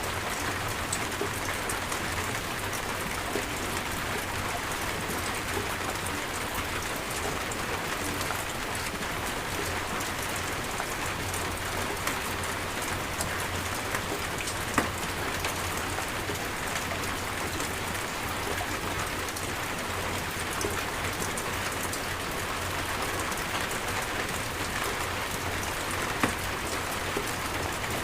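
Steady rain falling in a rainstorm, with two louder single drop hits, one about halfway through and one near the end.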